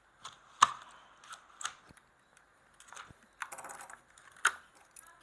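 Irregular sharp plastic clicks and taps from handling a Hot Wheels Premium blister pack and its die-cast car while it is opened. The loudest click comes about two-thirds of a second in, and there is a short flurry of smaller taps near the end.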